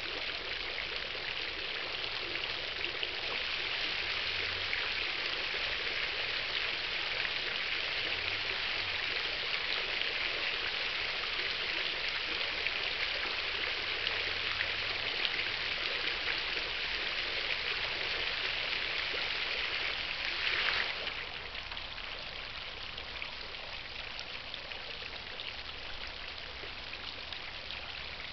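Garden fountain's water jets splashing into the basin: a steady rush that grows louder a few seconds in as the central brass cascade nozzle rises, then drops sharply about three-quarters of the way through as the central jet shuts off, leaving the quieter splashing of the nozzle ring.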